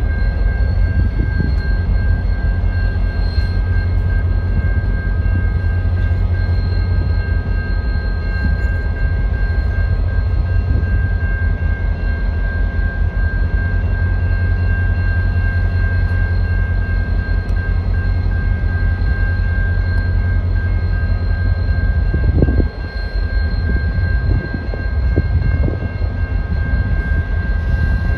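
EMD F40PH-2D diesel locomotive's 16-cylinder two-stroke engine running steadily while the locomotive stands, a deep even rumble with a steady high whine over it.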